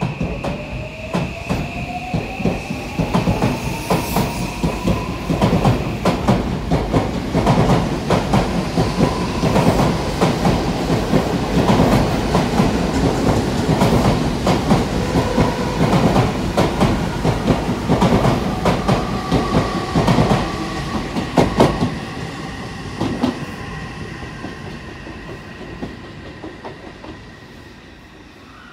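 Odakyu 1000 series electric train pulling away from the platform: its motor whine climbs in pitch over the first few seconds as it accelerates, with a steady run of clacks from the wheels crossing rail joints. The sound fades over the last several seconds as the train moves off.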